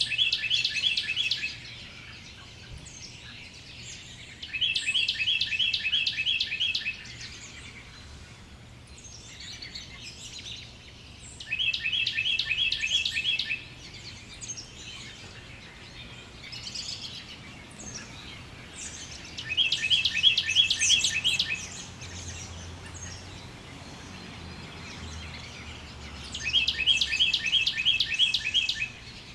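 A bird repeating a rapid trilled song: a fast run of clipped notes lasting about two seconds, given five times at intervals of about seven seconds, with fainter scattered chirps in between.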